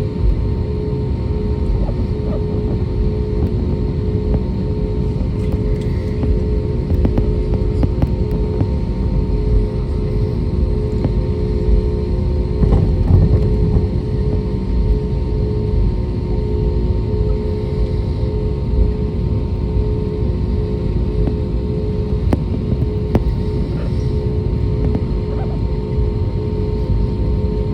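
Airbus A320neo airliner's jet engines running with a steady, even rumble and a constant hum, holding level throughout.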